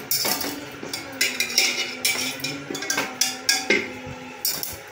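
A wire-mesh strainer ladle clinking and knocking against an aluminium pressure cooker and a steel bowl as boiled potatoes are scooped out and set down: a run of irregular metal clinks and knocks.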